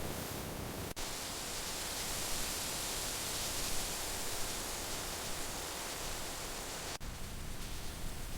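Steady rain hiss, even and without distinct drops, briefly cut out twice: about a second in and near the end.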